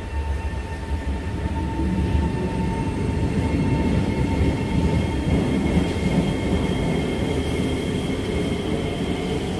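Singapore MRT electric train running close by, with the low rumble of its wheels on the track and the whine of its electric drive. The whine holds steady early on, then higher tones rise in pitch in the second half as the train's speed changes.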